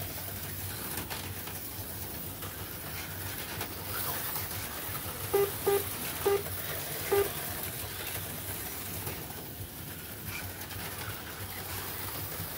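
HO slot cars running on a multi-lane track, a steady whir of small electric motors and pickups on the rails. Four short electronic beeps sound close together near the middle, from the lap-counting system as cars cross the line.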